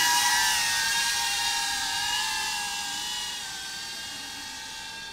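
Small FPV drone (an iFlight Protek 35 cinewhoop) in flight: its motors and propellers give a high-pitched whine. The whine holds a nearly steady pitch and fades steadily as the drone flies away.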